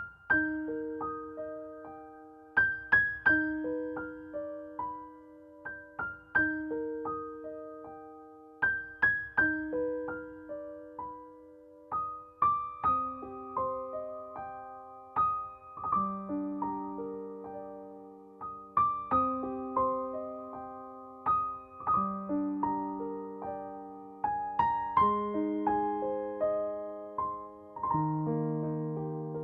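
Background piano music: a slow, gentle melody of single struck notes that ring and fade.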